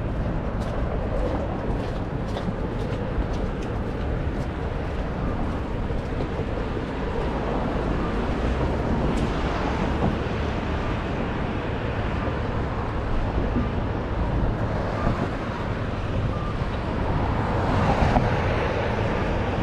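Outdoor street ambience while walking: a steady low wind rumble on the microphone and distant traffic, with faint footsteps on cobblestones in the first few seconds. A car passes close by near the end, the loudest sound.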